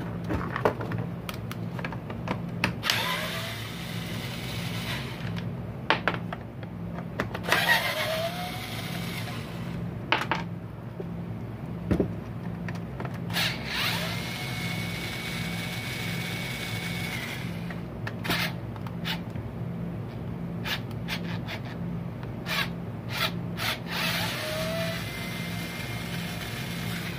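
Ryobi cordless driver running in several short bursts to back screws out of a two-stroke trimmer's engine housing, each burst a whine that rises as the motor spins up, the longest lasting about three seconds. Clicks and knocks of parts and tools being handled come in between, over a steady low hum.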